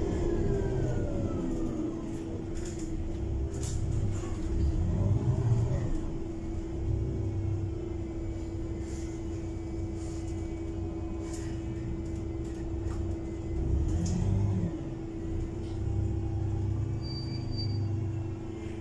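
Inside the cabin of a Heuliez GX337 natural-gas city bus: the engine runs with a low rumble that swells and fades, under a steady hum, with scattered small clicks and knocks.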